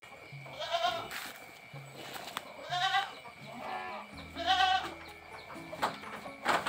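Goats bleating three times, about two seconds apart, each call wavering. A few sharp knocks fall between the calls.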